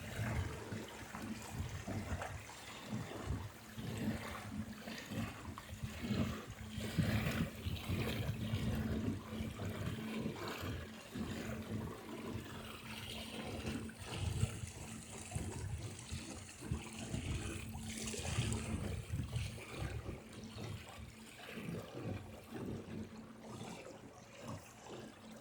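Water gurgling and slapping irregularly along the hull of a small sailboat under way, with a faint steady low hum through the middle stretch.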